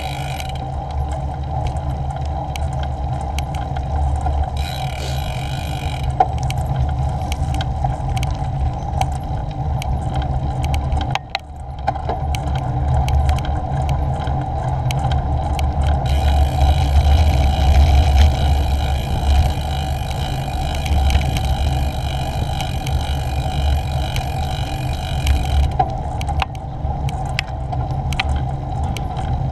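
Steady rumble of wind and tyre noise from a bicycle being ridden along a tarmac lane, picked up by a GoPro, with many small clicks and rattles. The rumble drops out briefly about eleven seconds in.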